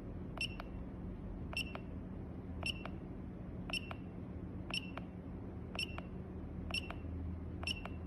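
Handheld ultrasonic flowmeter's keypad giving a short click-beep at each press of the down key, about once a second, eight times, as it steps through a menu list. A faint steady low hum lies under it.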